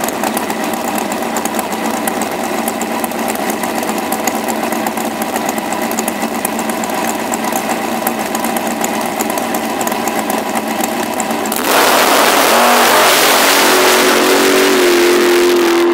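Big-block Chevy V8 dragster engine idling at the start line, then about twelve seconds in a sudden jump to full-throttle launch noise that stays loud as the car pulls away down the strip.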